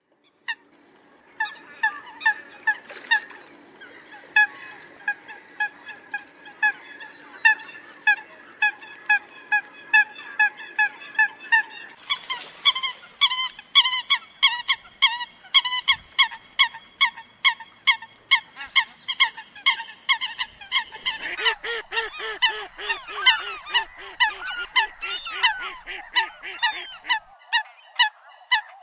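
Eurasian coots calling: a long run of short, clipped, pitched notes at about two a second. From about halfway the calls grow louder and overlap as if from several birds, and a lower-pitched series joins in later for several seconds.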